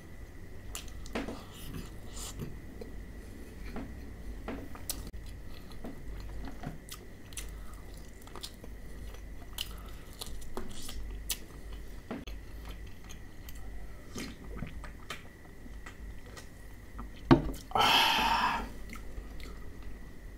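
Close-up chewing and crunching of crispy fried chicken, with many small crunches and mouth clicks. Near the end, a sharp knock and then a short, louder burst of noise.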